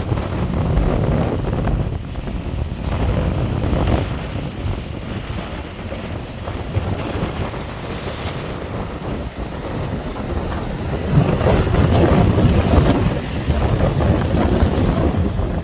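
Wind buffeting the microphone: a loud, gusty rumbling noise that grows stronger past the middle.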